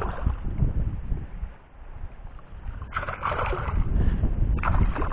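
Wind buffeting the microphone, with water splashing as a hooked emperor fish thrashes at the surface while it is reeled in. There are two splashes, the first about three seconds in and the second near the end.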